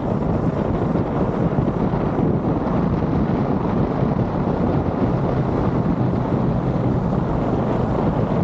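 Motorcycle riding downhill: steady wind noise on the microphone, with the engine running underneath.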